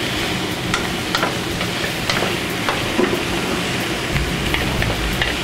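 Italian sausages sizzling as they brown in a metal frying pan, with metal tongs clicking against the pan again and again as they are turned.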